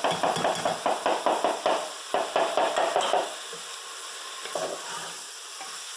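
Chicken gizzards and hearts sizzling in hot oil in a pressure cooker pot, with a spoon knocking and scraping against the pot in quick strokes, about four or five a second, for the first three seconds or so, then only a few knocks.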